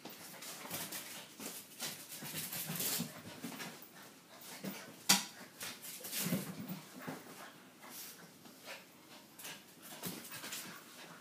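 A puppy and a small dog play-fighting: irregular scuffling and dog noises throughout, with one sharp knock about five seconds in.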